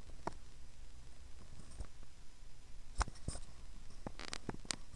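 Scattered light clicks and handling noises as a plastic card is moved about close to the microphone: a single click, a pair about three seconds in, and a short cluster near the end, over a low steady hum.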